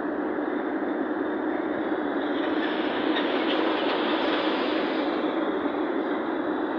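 Steady road and engine noise of a car cruising at expressway speed, heard from inside the cabin: an even tyre rumble with no breaks, swelling slightly around the middle.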